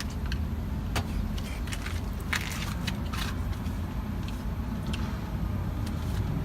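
Steady low rumble of a car, with scattered light clicks and brief rustles over it.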